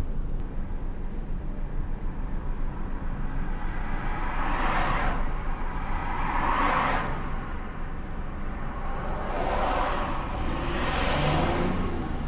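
Steady car engine and road rumble, with other vehicles swooshing past about four times, each rising and fading over a second or so.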